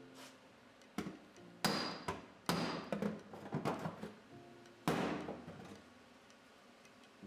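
MIG welder laying short tack welds on the thin sheet-metal patch panel of a 1974 VW Beetle: four short bursts of arc noise, the third the longest at about a second and a half, with pauses between to keep the heat down.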